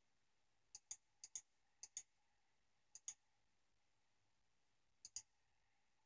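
Faint clicks of a computer mouse button, five in all at uneven gaps, each a quick press-and-release double tick. Each click steps a satellite animation forward one frame.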